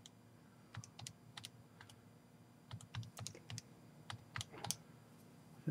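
Keys of a Texas Instruments TI-84 Plus Silver Edition graphing calculator pressed one after another, about a dozen faint, irregularly spaced plastic clicks as a number subtraction is keyed in.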